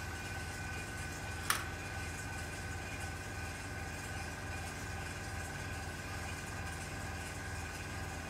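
Hobby airbrush compressor running with a steady hum, and a single sharp click about a second and a half in.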